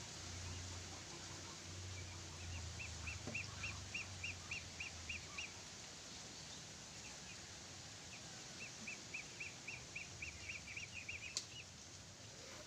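A bird calling a rapid run of short, high chirps, about four a second, in two bouts, over a low steady hum and outdoor background.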